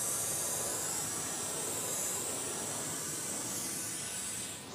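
Propane weed-burner torch with a long wand hissing steadily as air is drawn in at the burner head; the hiss stops just before the end.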